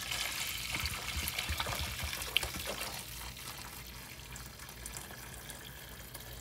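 Freshly boiled water poured from a kettle into a pot of beef broth, a steady splashing pour that eases off after about three seconds. One sharp click about two and a half seconds in.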